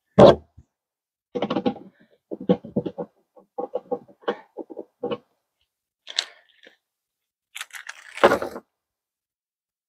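Hard plastic parts of a compost tumbler being handled and fitted together during assembly: a run of short clicks and knocks, then rustling, loudest about eight seconds in.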